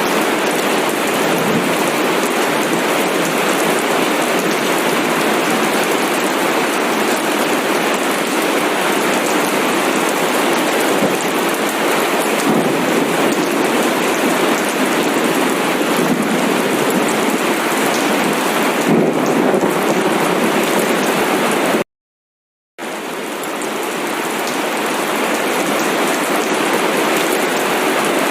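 Steady, dense rain falling, an even hiss without distinct drops. About three quarters of the way through it cuts out completely for under a second, then fades back in.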